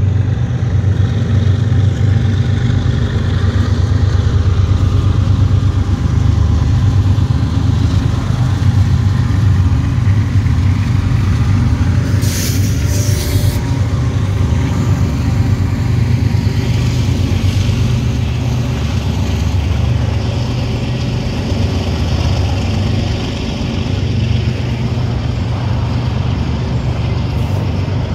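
Steady low rumble of a moving car's road and engine noise, heard from inside the cabin, with a brief hiss about twelve seconds in.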